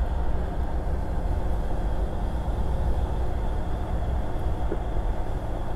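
Car driving along a paved road, heard from inside the cabin: a steady low rumble of road and engine noise.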